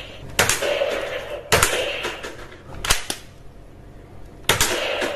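Toy gun firing four sharp shots over about four seconds, each followed by a short fading tail.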